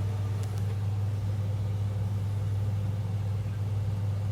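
A steady low hum with a fainter higher tone above it, unchanging throughout.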